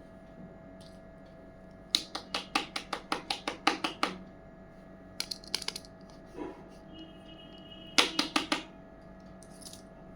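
Small plastic toy kitchen pieces clicking and tapping as they are handled. A rapid run of about a dozen light clicks comes about two seconds in, a few more follow in the middle, and another quick run of clicks comes near the end.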